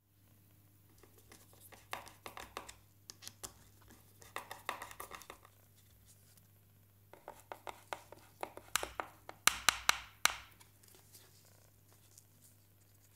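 Hands handling a hard plastic speaker enclosure fitted with a webbing strap and metal buckle: irregular clicks and taps in clusters, ending in four sharp louder clicks about ten seconds in, over a low steady hum.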